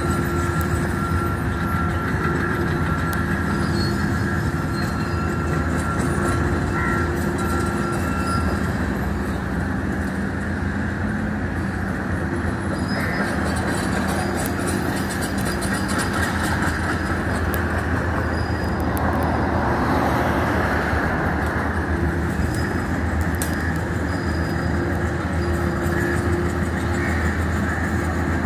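Diesel engines of a crawler excavator and a single-drum road roller running steadily: a continuous low drone with a thin steady whine that stops about eight seconds in.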